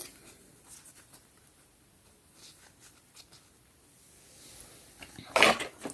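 Quiet room with a few faint light clicks of small toy figures being handled, then a short soft rustle near the end.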